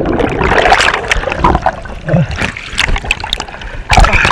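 Sea water churning and bubbling around a submerged camera after a plunge into the sea, a jumble of irregular splashes and gurgles, with a loud burst of splashing about four seconds in.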